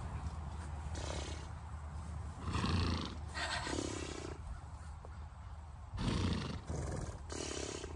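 Wind buffeting a phone's microphone: a steady low rumble with louder gusting rushes about two and a half seconds in and again about six seconds in.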